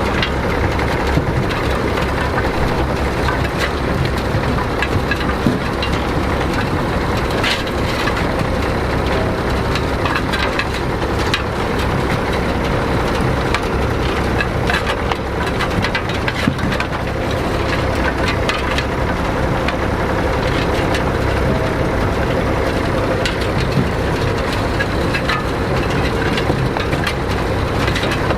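Tractor engine running steadily while a sugar beet harvester works, with a constant dense clatter and crunching over the engine.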